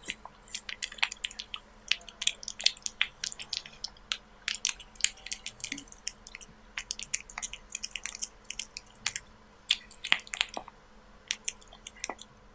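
A kitten chewing raw beef: quick, irregular wet clicks and smacks, several a second, stopping shortly before the end.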